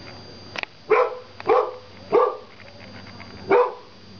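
A dog barking four times in short single barks, the first three about half a second apart and the fourth after a pause of over a second.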